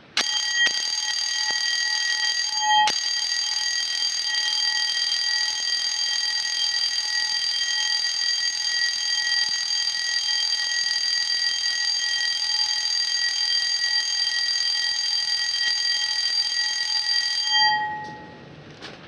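12-volt motorised intruder alarm bell from 1987, its motor spinning twin metal strikers against the steel dome. It rings continuously and pretty loud for about 17 seconds as one steady metallic clang, with a momentary break about three seconds in, then stops and rings out briefly.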